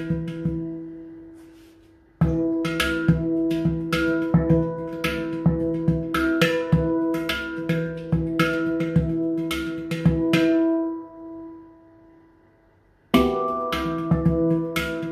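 Yishama pantam (steel handpan) in E harmonic minor (Hijaz Romani), played with the fingers: quick rhythmic strikes and taps on its ringing notes over a held low tone. The notes are left to ring and fade twice, almost to quiet the second time, before the playing starts again near the end.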